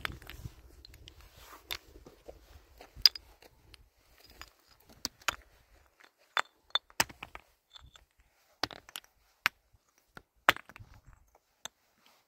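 About a dozen sharp clicks and clinks of small hard objects, coming irregularly and spread out, with quiet between them.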